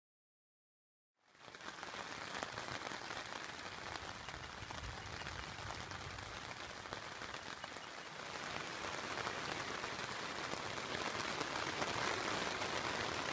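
Rain falling steadily on a tent's fabric, heard from inside the tent. It starts about a second in and grows a little heavier in the second half.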